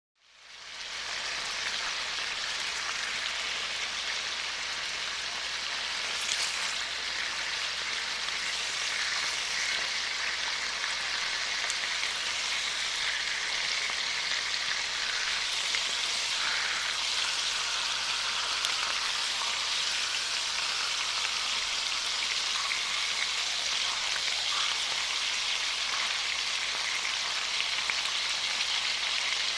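Food frying in hot oil: a steady sizzling hiss dense with tiny crackles and pops, fading in over the first second and then holding even.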